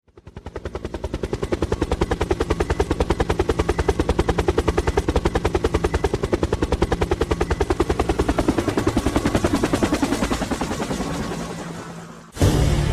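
Helicopter rotor beating with a rapid, even rhythm over a low steady hum. It fades in over the first couple of seconds and dies away, then cuts off abruptly near the end as music begins.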